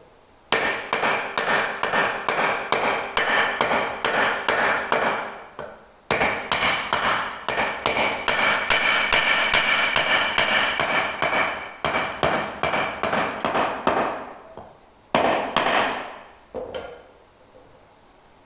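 Rapid hammer blows on steel fittings, about three a second, each with a metallic ring, as the rear axle of a shepherd's hut chassis is assembled. Two long runs of strikes are split by a short pause, then come a couple of harder final blows and a light tap.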